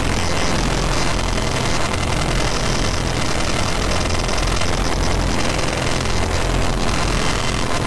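Harsh noise / power-electronics texture from a SunVox modular synth patch: a dense, steady wall of distorted noise over a low droning rumble that swells and dips.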